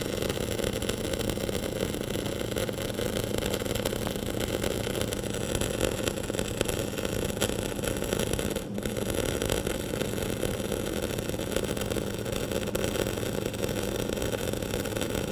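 Flux-cored wire arc welding a flat fillet weld on a lap joint: a steady crackling arc with a low hum underneath. The arc breaks for an instant about nine seconds in, then carries on.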